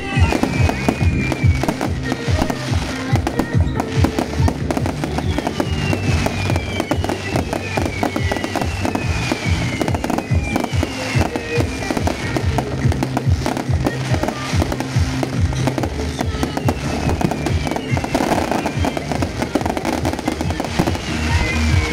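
Fireworks display at full pace: a dense run of crackling and popping bursts with falling whistles every couple of seconds, over music with steady low chords.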